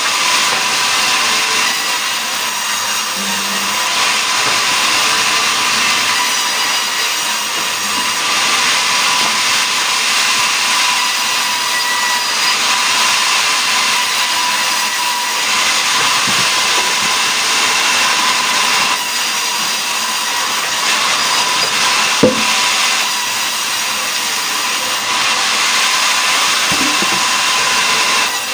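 Powered sawmill saw cutting mahogany logs into boards: a loud, continuous high whine and rasp that swells and eases as the cut goes on, with one sharp knock about 22 seconds in.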